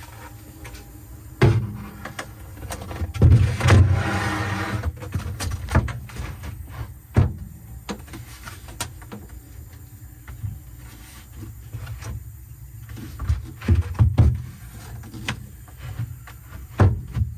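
A heavy plywood board being handled and set into place: irregular knocks and thumps of wood, with a scraping rub for a couple of seconds a few seconds in.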